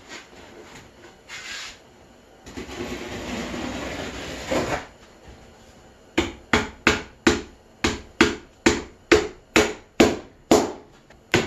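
A couple of seconds of rough rustling noise, then, starting about six seconds in, a steady run of sharp knocks at about two and a half a second.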